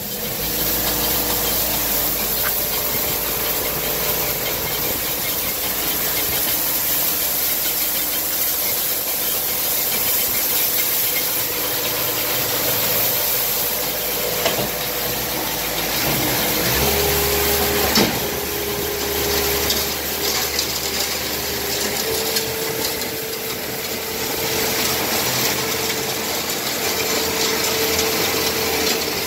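Skid steer running steadily, with a whine that shifts in pitch a couple of times and a single knock partway through.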